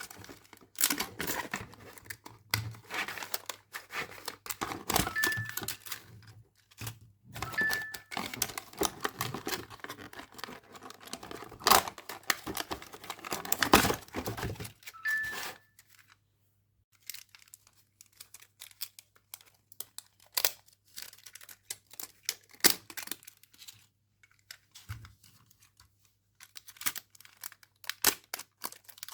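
Toy packaging being torn open and crinkled by hand: dense tearing and crackling through the first half, then sparser clicks and rustles.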